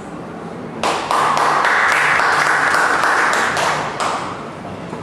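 A small audience clapping, breaking out about a second in and dying away about four seconds in.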